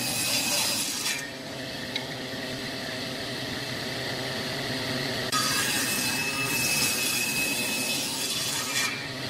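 Table saw ripping a narrow strip of wood for about the first second, then its blade spinning freely with a steady motor hum, then ripping a second strip from about five seconds in until just before the end.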